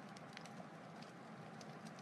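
Wood fire crackling: scattered sharp pops and snaps over a soft, steady rush.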